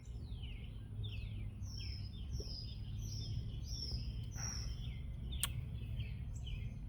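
A songbird singing a run of repeated high, downward-slurred chirps over a steady low outdoor rumble. One sharp click comes about five and a half seconds in.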